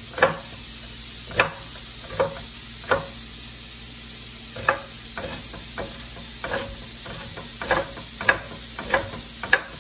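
A chef's knife chopping an onion on a wooden cutting board: about a dozen sharp, unevenly spaced knocks. Under them, a steady sizzle of ground chorizo frying in a hot pot.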